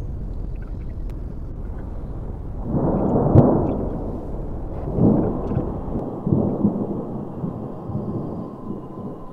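Thunder rumbling over a steady low background: a loud roll about three seconds in, then two more swells a couple of seconds apart.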